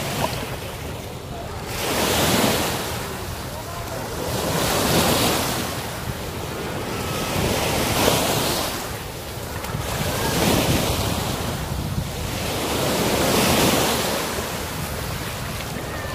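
Small waves washing up on a sandy beach, the surf swelling and fading about every two and a half to three seconds, with wind on the microphone.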